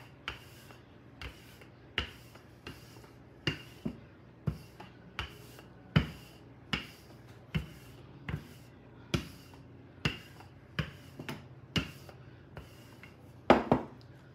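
Wooden rolling pin rolling out pie crust dough on a floured board, with a short sharp knock at each stroke, a little more than once a second. Near the end comes a louder double knock as the pin is set down.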